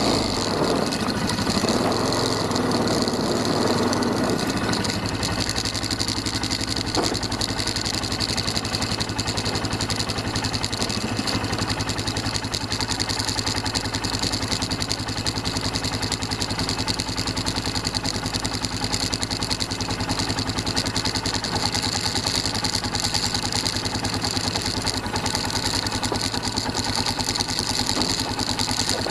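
Quad (ATV) engine running steadily at low speed, its firing pulses even throughout. It is slightly louder in the first few seconds, then settles.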